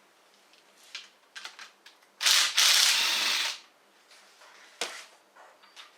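Socket ratchet being worked to undo a bolt on a motorcycle engine's top-end cover: a fast run of ratchet clicking about two seconds in that lasts about a second and a half. Small metal tool clinks come before and after it.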